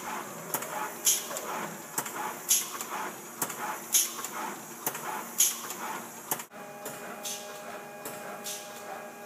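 Pick-and-place machine running: a repeating cycle of short hissing puffs and mechanical clicks, one strong puff about every second and a half with lighter ones between. About two-thirds through the sound changes, with a steady hum joining and the puffs fainter.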